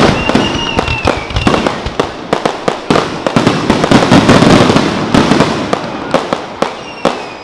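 Fireworks going off in a dense, rapid string of crackling pops and bangs. A whistle falls slightly near the start, and another comes near the end.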